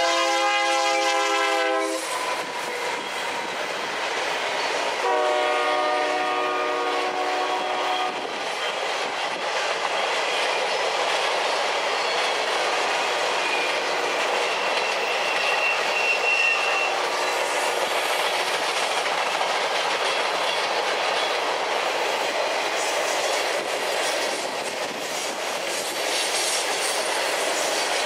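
Union Pacific diesel locomotive horn sounding two multi-tone blasts, one at the start and another about five seconds in, as the freight train passes close by. After that comes the steady rolling clatter of freight cars on the curved track, with a brief faint high wheel squeal about halfway through.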